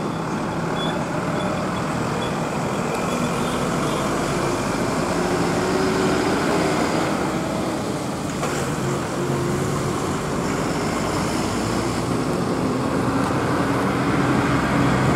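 Heavy diesel trucks on a hill road, their engines running steadily as they pass, the engine note slowly falling and rising, over a continuous rumble of road traffic.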